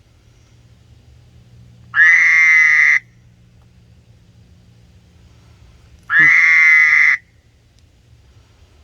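A frog calling loudly: two calls, each about a second long and about four seconds apart, which the man takes for a mating call.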